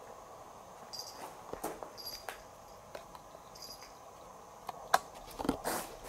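Short high chirps, a few times about a second or two apart, with scattered sharp clicks and knocks; the loudest is a single sharp click about five seconds in.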